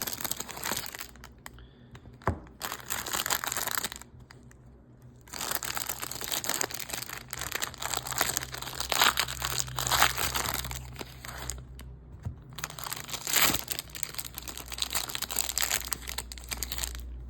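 Wrapper of a baseball card rack pack crinkling and tearing as it is pulled open by hand, in bursts of rustling with a few short pauses and the odd sharp crackle.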